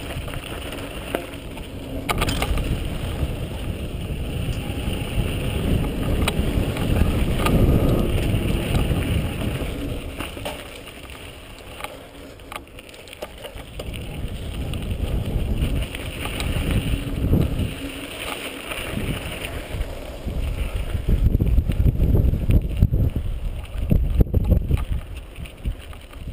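Mountain bike riding fast down a dirt trail: tyre noise over dirt and loose stones with wind on the action camera's microphone, rising and falling with speed, and a few sharp knocks from the bike over bumps.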